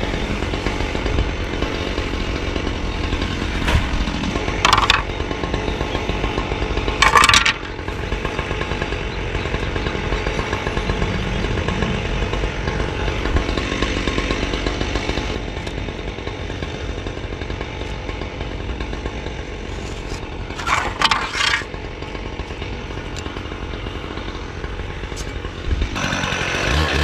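Small two-stroke engine of a gas-powered concrete cut-off saw running steadily at idle, with a few brief louder bursts.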